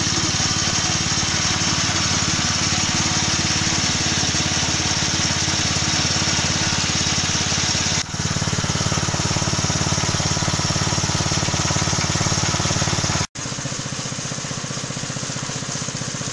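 Motor-driven mincer-type extruder for fish-cracker dough running steadily under load as dough is pressed out through its die. About thirteen seconds in, the sound cuts off suddenly and a quieter, steady machine hum follows.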